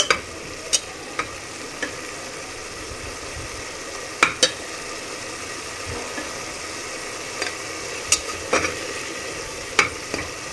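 Onion and tomato masala sizzling steadily in hot oil in a pressure cooker as it is sautéed, with a slotted metal spatula stirring it and clicking and scraping against the pot now and then, loudest a few times in the middle and near the end.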